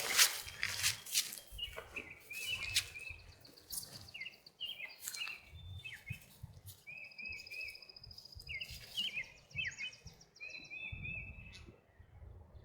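Small songbirds chirping and singing in short repeated phrases, one giving a fast trill about seven seconds in. A few sharp clicks sound in the first two seconds.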